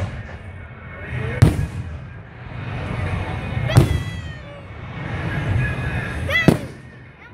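Aerial fireworks shells bursting overhead: a sharp bang right at the start, then three more spread across the next seven seconds, about two to three seconds apart, with a low rumbling haze between them.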